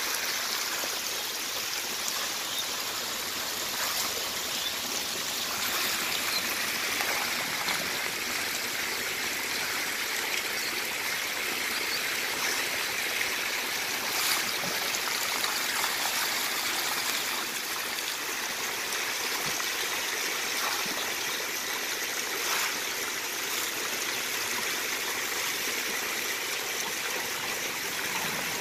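Thousands of magur catfish thrashing and splashing in a crowded shallow tank while a plastic crate is pushed through them. The sound is a steady hissing wash of water with occasional sharper splashes.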